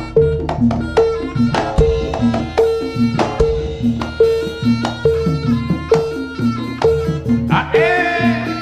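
Javanese gamelan music accompanying a jaranan dance: struck pitched metal percussion and drums in a steady, even rhythm. A wavering reed-like wind instrument comes in near the end.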